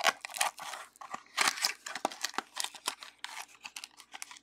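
Clear cellophane wrap crinkling and tearing as it is stripped off a sealed box of baseball cards, a quick run of crackles.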